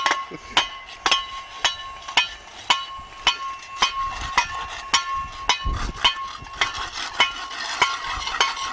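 Hand tools scraping and striking an asphalt road in a steady, even rhythm of about two sharp strokes a second, with a faint steady high tone underneath.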